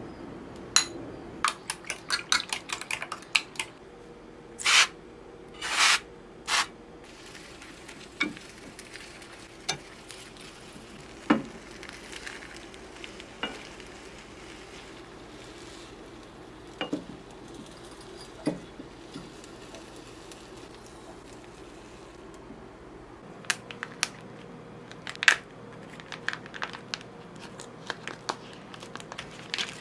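Kitchen cooking sounds: a spoon clinking in a glass measuring cup of beaten eggs, then a Korean rolled omelette (dalgyal-mari) cooking and being turned in a square pan with a wooden spatula, with scattered knocks and a soft sizzle. Near the end comes a run of small crackles as plastic film is peeled off a packaged salmon fillet.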